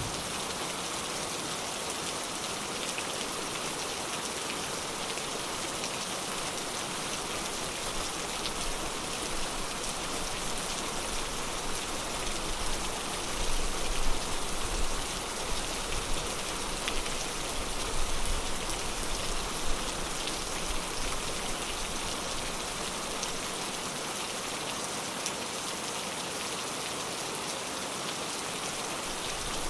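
Steady heavy rain falling on a surface, a dense even hiss of drops. A low rumble swells in the middle and fades, with a few louder patters.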